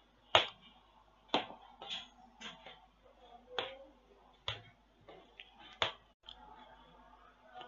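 Sharp clicks and knocks of XLR cables and their metal connectors being handled and set down on a plastic-covered table, about seven separate clicks at an uneven pace, the first the loudest.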